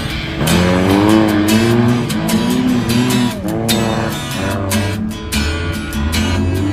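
Race vehicle engines revving up and down on a dirt track, mixed with background music that has guitar and a steady beat.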